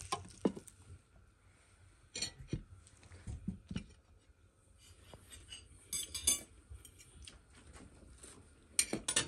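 Cutlery clinking against ceramic plates: scattered short taps and clinks of knife and fork on dishes, in small clusters with quieter gaps between.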